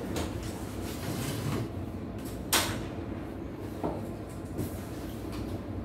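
Foam packing blocks and plastic being handled while unpacking an embroidery machine: rustling and a few knocks, with one sharp clack about two and a half seconds in, over a steady low hum.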